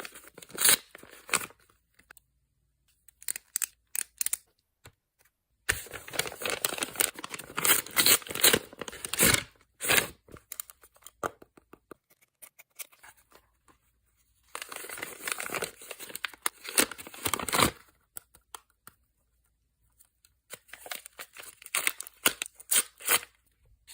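Paper being handled close up in irregular bursts of crinkling and tearing, separated by quiet pauses, as a handmade paper blind bag is worked open.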